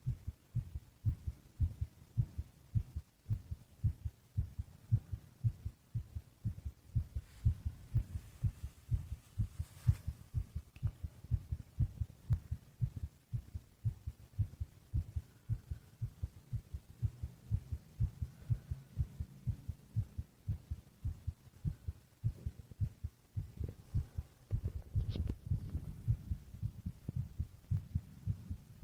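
A sleeping man's heartbeat, a steady rhythm of low, muffled thumps, about two a second.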